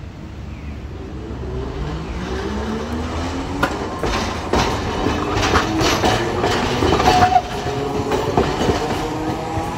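Hiroshima Electric Railway 700-series streetcar No. 703 passing close by. Its electric traction motors whine, rising in pitch as it gathers speed. Its wheels then clatter in a run of knocks over the rail joints and the points of the line junction, with a brief squeal about seven seconds in.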